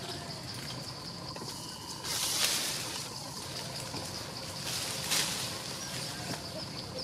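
Outdoor ambience among leafy branches: a steady hiss with a faint high steady tone, and two brief louder rustling swells about two and five seconds in.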